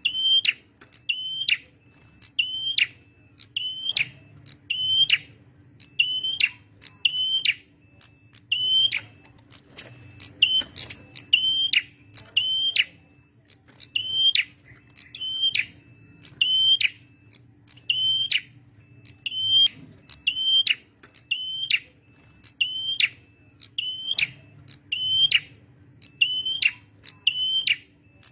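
Male prenjak merah singing vigorously: a short, sharp, high call with a quick downward sweep, repeated steadily about once every three-quarters of a second.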